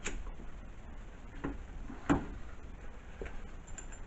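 A few separate small knocks and clicks of metal parts and bolts being handled while fitting a lathe tool post, the loudest about two seconds in.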